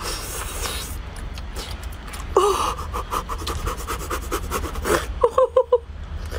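A woman panting and gasping while eating chili-coated octopus with her hands, with wet sucking and chewing clicks. About two and a half seconds in she lets out a falling 'ah', and near the end gives four quick short pants.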